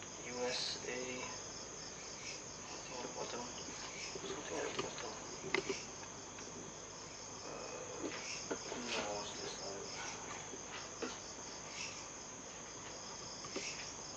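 Crickets chirping in a steady high trill, with a few light clicks and knocks from objects being handled, the sharpest about five and a half seconds in.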